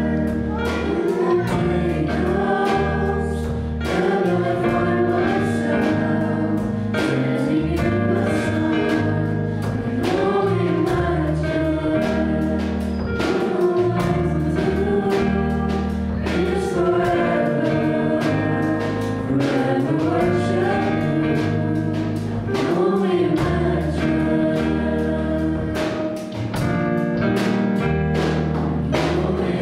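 Small mixed-voice worship group singing a song in harmony, backed by a live band with keyboard, electric bass and drum kit keeping a steady beat.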